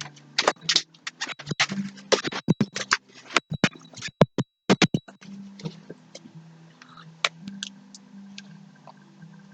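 Fluffy homemade slime being squished and stretched by hand: a quick run of sharp clicks and pops, then sparser clicks.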